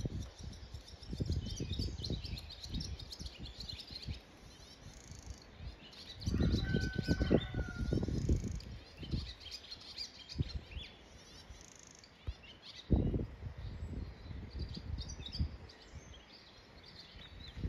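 Small wild birds chirping and twittering throughout, with irregular low rumbling bursts that are loudest from about six to nine seconds in and again briefly around thirteen seconds.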